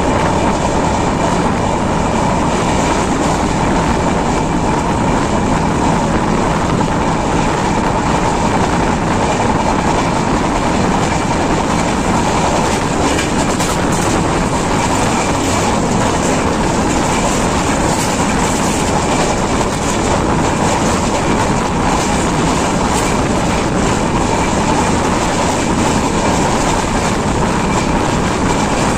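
Express passenger train running along the line, heard beside an open coach door: a loud, steady rumble of wheels on rails, with clickety-clack over rail joints.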